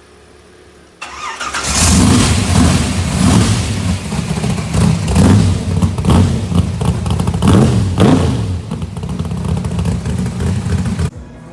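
Car engine running loud and being revved again and again, its pitch rising and falling. It starts abruptly about a second in and cuts off suddenly near the end.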